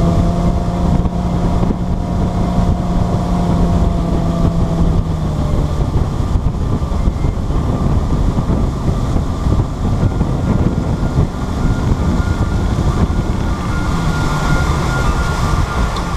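Motorboat under way: its engine running steadily under heavy wind buffeting on the microphone, with the engine's tone fading back about five seconds in.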